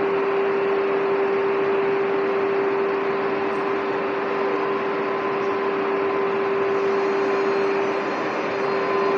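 Renfe Series 450 double-deck electric train standing at the platform, its electrical equipment giving a steady hum with one constant mid-pitched tone over a hiss.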